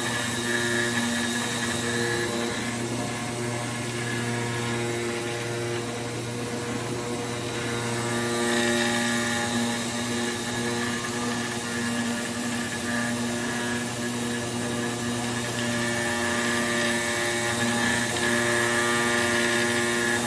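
High-speed router spindle on an AOKE CNC cutting table milling E-flute corrugated board: a steady machine whine with several tones over a hiss. Some of the tones ease off for a few seconds in the middle and come back as it carries on cutting.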